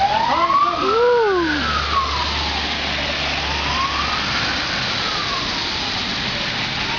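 An emergency-vehicle siren wails, its pitch rising and falling slowly and growing fainter, over the steady hiss of rain. A low rumble comes in about a second in and dies away.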